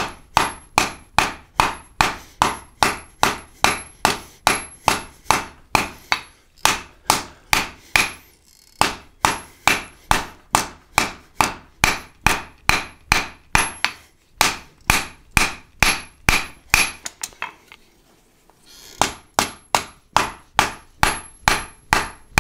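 Hand hammer striking a hot salvaged high-carbon steel flat bar on an anvil in steady blows, about two and a half a second, necking the bar down. There are two short breaks, about eight seconds in and around eighteen seconds.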